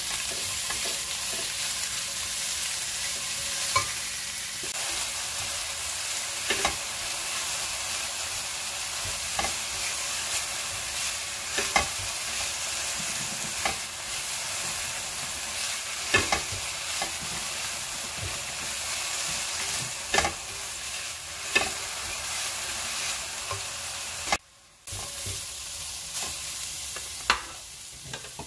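Vegetables sizzling as they are stir-fried in a stainless steel pan with a silicone spatula: a steady hiss, with a sharp knock of the spatula against the pan every few seconds. The sound cuts out for a moment near the end.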